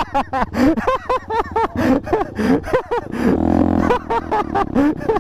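A man laughing hard in a rapid run of breathy "ha" bursts, with a short pause a little past the middle, over a motorcycle engine running underneath.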